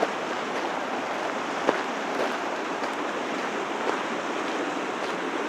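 Gunnison River rushing with a steady, even noise, with a few faint clicks over it.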